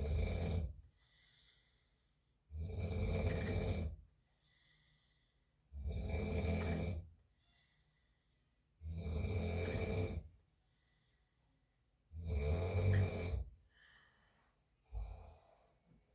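A man snoring in his sleep: long, rasping snores a little over a second each, coming regularly about every three seconds, then two shorter, weaker ones near the end.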